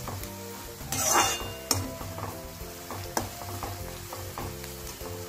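Chopped onion frying in hot oil in a metal kadhai, sizzling as a metal slotted spatula stirs it, scraping and clicking against the pan, with a louder scrape about a second in. The onion is being sautéed on medium heat until it browns.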